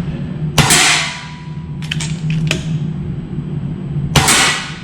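Two shots from an FX Verminator .22 PCP air rifle, each a sharp crack with a short fading tail, about three and a half seconds apart, with a few light clicks between them.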